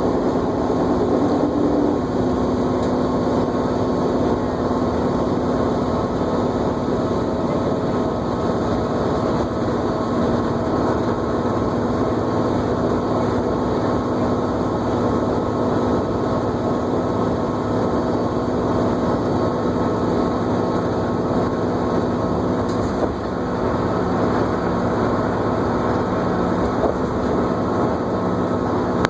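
New Flyer D40LFR diesel transit bus under way, heard from inside the cabin: engine and drivetrain running steadily with a whine over road rumble.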